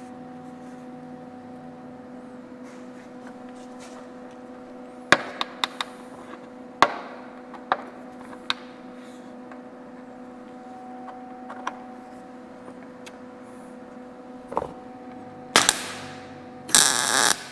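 Lincoln 175 MIG welder striking two short tack welds on sheet-steel fender metal near the end, each a brief burst of arc crackle, set hot for a quick tack that melts without burning through. Before them, a few sharp clicks and taps over a steady hum.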